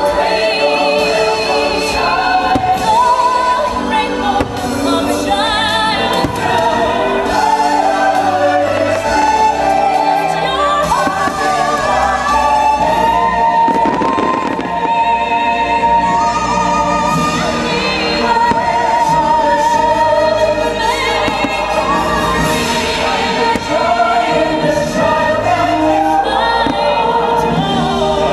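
Orchestrated Disney show music with a choir singing, over fireworks shells bursting again and again.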